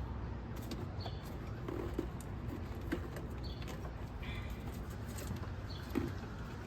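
Low steady background noise with a few faint clicks and knocks, and short high bird chirps now and then.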